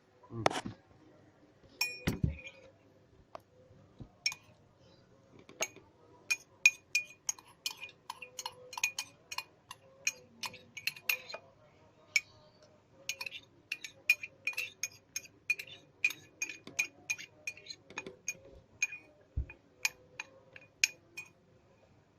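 Metal spoon clinking repeatedly against a drinking glass, about two to three strikes a second with a short glassy ring, as crushed saga leaves are worked in water in the glass. A few scattered clinks come first, then the steady run starts about six seconds in and stops just before the end.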